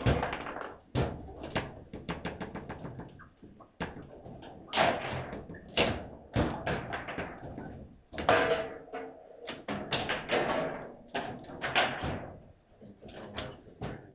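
Foosball table in play: sharp knocks and clacks of the ball struck by the plastic player figures and of the rods banging against the table, coming irregularly throughout, with a quick rattle of clicks about two seconds in.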